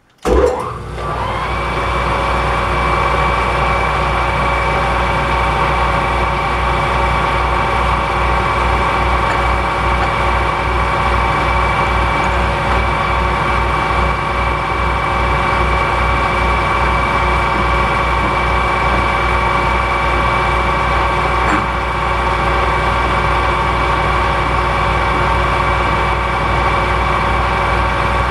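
Metal lathe starts abruptly about a third of a second in and then runs at a steady speed with a steady whine and a low throb. A countersink cutter is taking a light cut to open out the radius on an aluminium fork slider's axle eye.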